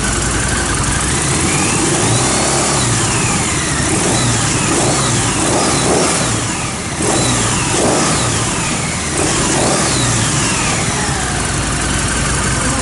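Custom Harley-Davidson V-twin running without mufflers, blipped and revved up and down about six or seven times over its idle.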